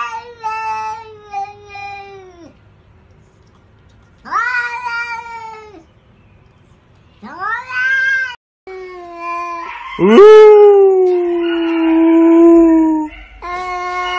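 Domestic cats yowling in long, drawn-out meows. There are three calls in the first eight seconds, then a louder, longer yowl starting about ten seconds in and another near the end.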